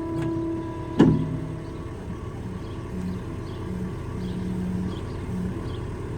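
Skid loader engine running under load while its bucket presses a fence post into the ground, with a sharp knock about a second in, after which the engine's pitch changes and wavers.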